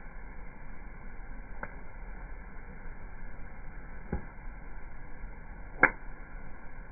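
Wood campfire burning with a steady low hiss and three sharp crackling pops, the loudest about six seconds in.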